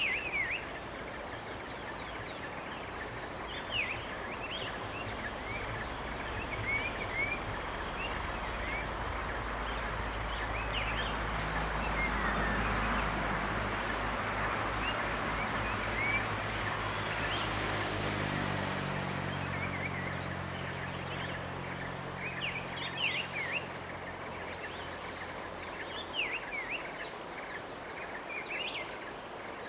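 Forest ambience: a steady high insect drone with scattered short bird chirps. A distant engine swells in over the first half and drops a little in pitch as it fades out near the end.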